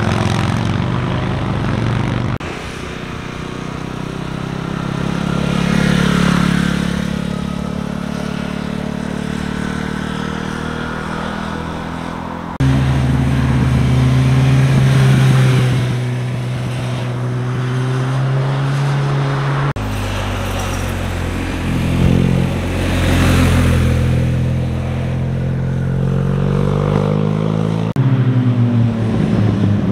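Motorcycles riding one after another through a hairpin bend, their engines rising and falling in pitch as they accelerate and pass close by. The sound changes abruptly several times where short clips are cut together.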